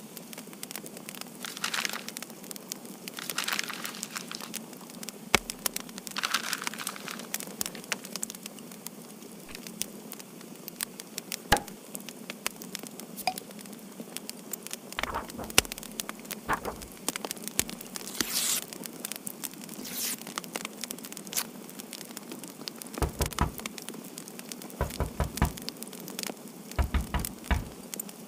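Irregular crackling and popping over a steady hiss, with brief low thuds in the second half.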